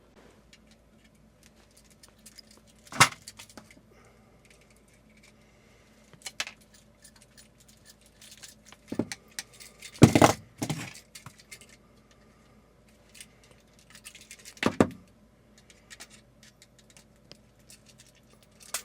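Intermittent metallic clinks and knocks from hand tools and electrical hardware being handled, about half a dozen separate hits, the loudest about ten seconds in.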